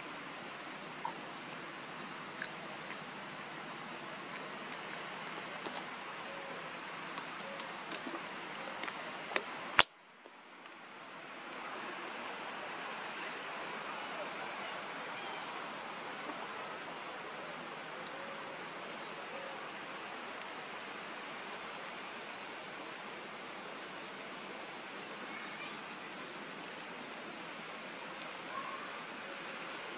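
Steady outdoor insect chorus, a continuous buzz with a faint, evenly pulsing high note. About ten seconds in comes a single sharp click, the loudest sound, after which the background drops out and swells back over a couple of seconds.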